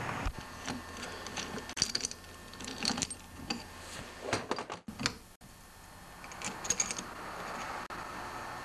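Small-engine parts clinking and tapping: a connecting rod and piston handled and fitted onto a steel crankshaft held in a vise, giving scattered light metal clicks at an irregular pace.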